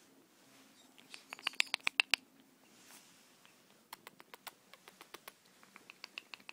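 Pomeranian puppy scuffling and pawing at a blanket: a quick run of small sharp clicks and scratches about a second in, then a looser series of clicks from about four seconds in.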